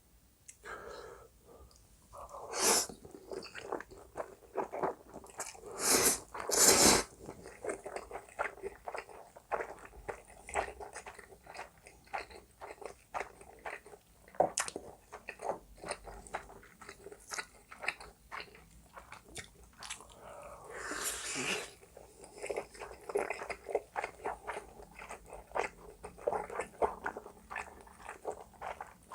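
Close-miked mukbang eating: spicy buldak and jjapaghetti noodles and whole Spam being chewed with many small wet clicks. A few louder, longer sounds come about three, six and seven seconds in and again near twenty-one seconds.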